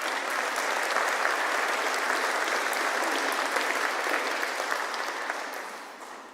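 Congregation applauding with dense, steady clapping that dies away near the end.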